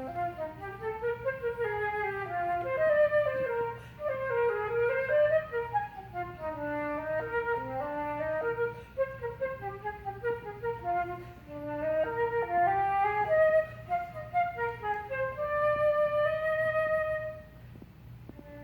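Solo concert flute playing an unaccompanied melody of quick rising and falling runs, settling onto a long held note near the end.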